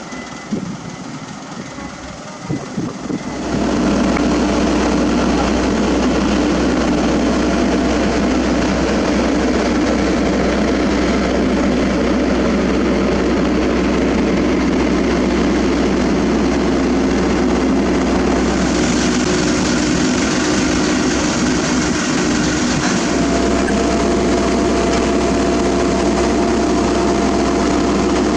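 Heavy road-paving equipment engine running close by: a loud, steady rumble with a constant deep hum that comes in suddenly a few seconds in and holds on. Between the start and that point there are lighter knocks. A brighter hiss rides over it for a few seconds past the middle.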